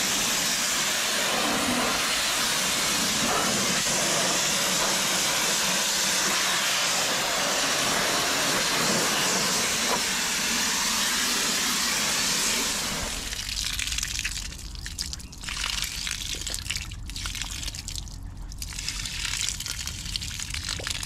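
Water spraying onto the boat, a steady hiss that stops about thirteen seconds in, leaving quieter, uneven noise.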